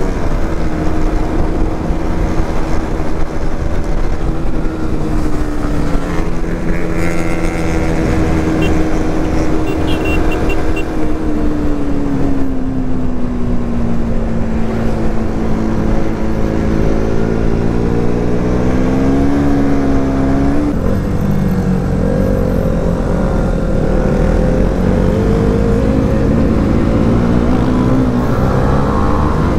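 Motorcycle engine running while riding, with wind rushing over the microphone. The engine's pitch sags slowly through the middle, climbs back, and changes abruptly about two-thirds of the way through.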